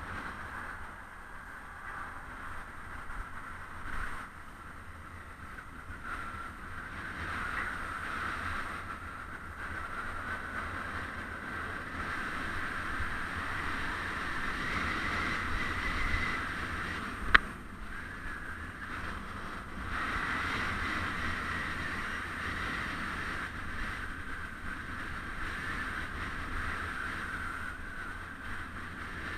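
Wind and road noise picked up by a camera on a moving bicycle: a steady hiss over a low rumble. There is one sharp click about seventeen seconds in.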